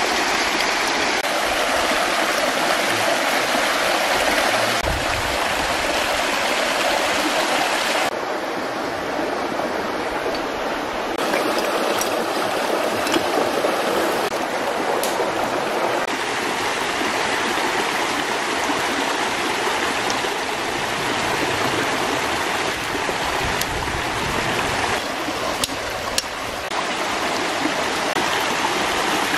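Rocky stream rushing over small cascades: a steady, fairly loud rush of water, with a few faint clicks.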